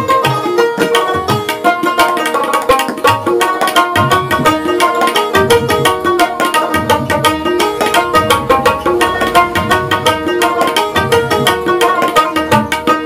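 Instrumental background music: a plucked dotara melody over a steady drum beat.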